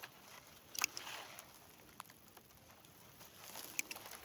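Faint rustling with a few light clicks scattered through it.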